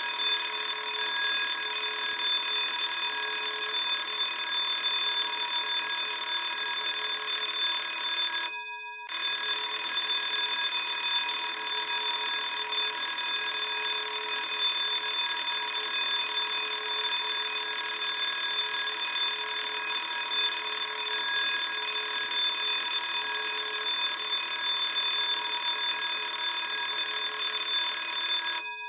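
Classic electric school bell ringing continuously with a steady, bright metallic ring. It cuts out about nine seconds in and starts again half a second later.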